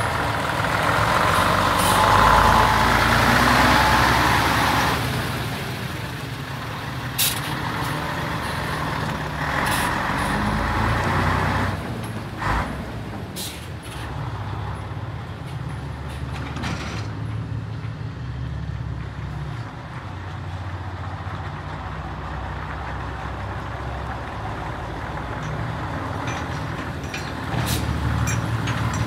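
Scania 112M fire truck's diesel engine running as the truck drives away and turns back, with a long hiss of air in the first few seconds, another around ten seconds in, and a few short sharp sounds.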